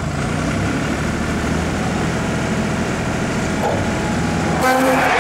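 A machine's motor running with a steady hum. Near the end it gets louder and a higher whine comes in.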